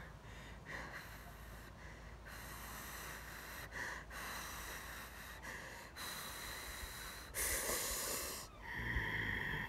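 A person breathing audibly close to the microphone: a run of hissy in-and-out breaths, each about a second long, the loudest two near the end.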